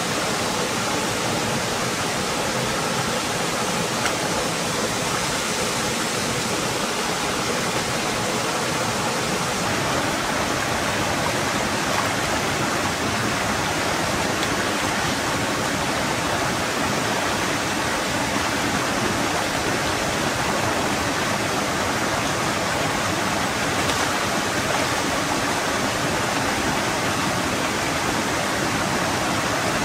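Steady rushing of a shallow rocky stream flowing over stones.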